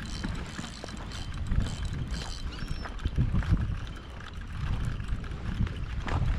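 Wind buffeting the action camera's microphone, a low rumble that swells and fades in gusts.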